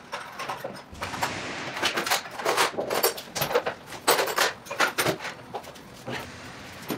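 Irregular light knocks, clicks and rubbing from hands moving tools and cabinet parts.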